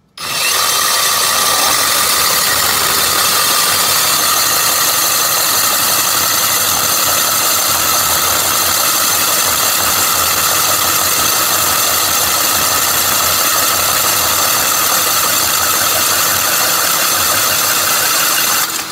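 Metabo brushless SDS Max rotary hammer driving a Diteq C34 Arix diamond dry core bit into a concrete block, a loud, steady drilling noise. It starts abruptly and cuts off shortly before the end.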